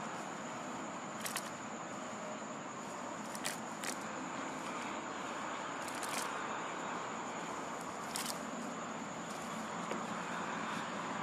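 Young grass being plucked by hand, with about five sharp snaps of stems at irregular intervals over a steady outdoor hiss.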